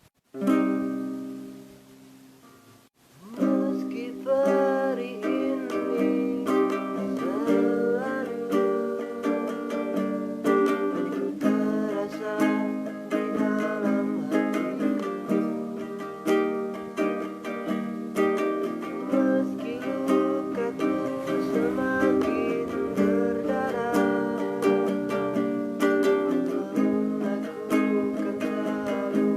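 A plucked string instrument played as music: one chord rings out and fades, then steady strumming and picking starts about three seconds in and carries on.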